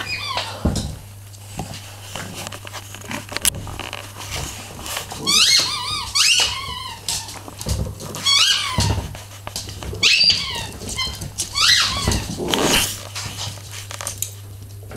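Small dogs playing on a wooden floor, with several short bursts of high-pitched, gliding squeaks and scattered soft knocks.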